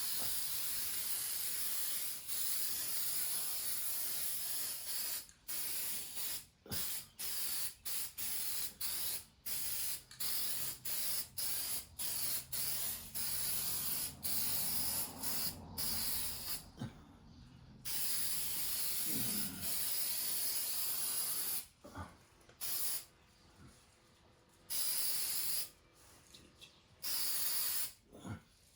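Hissing sprays of aerosol brake cleaner and a compressed-air blow gun, cleaning dirt out of a 4L60E automatic transmission before it is installed. A long steady blast comes first, then a run of many short blasts with gaps between them, and a few longer ones near the end.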